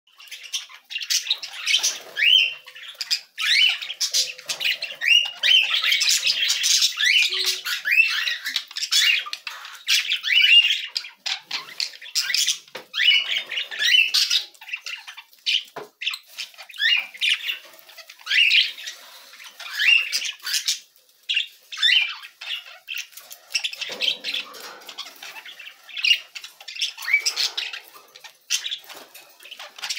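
Young budgerigars chattering: a busy, almost unbroken run of quick chirps, squawks and short rising whistles, with a few brief lulls.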